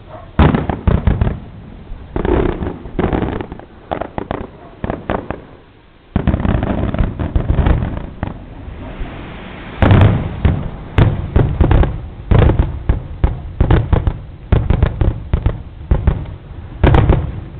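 Aerial firework shells bursting, one loud bang after another, each followed by a rumbling tail. There is a short lull just before six seconds, then a faster, denser run of bursts from about ten seconds on.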